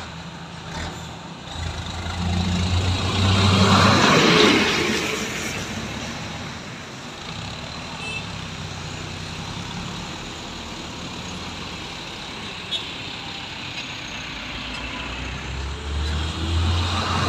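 Heavy diesel trucks on the road: one drives past close about four seconds in, the loudest moment, its sound sweeping down in pitch as it goes by, then steady engine noise from the traffic. Near the end a Hino 500 truck's diesel engine comes up close.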